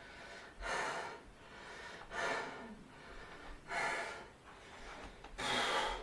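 A man breathing hard from the exertion of bodybuilding posing: four loud, forceful breaths about a second and a half apart.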